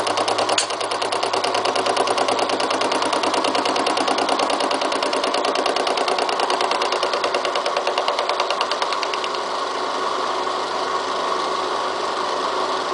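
Milling machine fly cutter taking a surfacing cut across a steel railroad-rail anvil under power feed: a steady machine run with a rapid, even chatter from the interrupted cut. There is a sharp click about half a second in, and the cut gets slightly quieter and smoother after about nine seconds.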